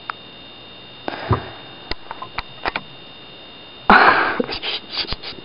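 Sharp clicks of typing on an iPod Touch's on-screen keyboard, a few spaced out and then several in quick succession near the end. Two noisy breaths through the nose come about a second in and, louder still, about four seconds in.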